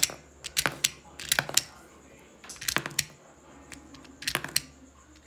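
Small metallic clicks in five short bursts spread through a few seconds, as a metal hex key turns the rotor of a repaired Avenger air rifle rotary pellet magazine to check that it turns properly.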